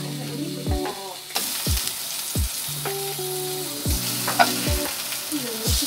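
Courgette slices sizzling in a non-stick frying pan on a gas burner as they are turned with tongs. The sizzle gets much louder about a second and a half in. Light background music with plucked notes plays underneath.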